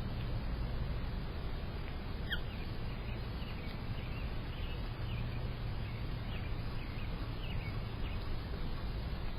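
Faint bird chirps, a loose series of short high notes through the middle of the stretch, over a steady low background rumble. There is a single sharp click a couple of seconds in.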